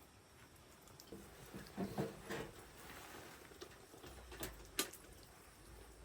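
Irregular handling noises: a short cluster of soft knocks about two seconds in, then two sharp clicks shortly before the end.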